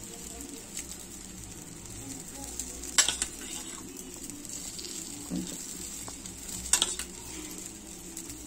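Egg batter sizzling steadily in hot oil in the cups of a cast-iron kuzhi paniyaram pan, with two sharp metal clinks from the ladle about three seconds in and near seven seconds.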